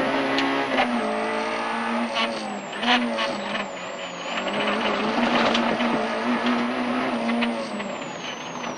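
Peugeot 106 Rallye's 1.3-litre four-cylinder engine driven hard, its note held steady but dipping briefly several times as the revs drop and pick up again. Road and tyre noise run underneath, with scattered sharp clicks.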